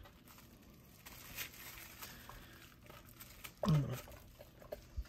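Faint rustling and light clicks of a bamboo sushi-rolling mat and plastic wrap as a roll is pressed and rolled by hand. A short falling 'hmm' from the man about three and a half seconds in.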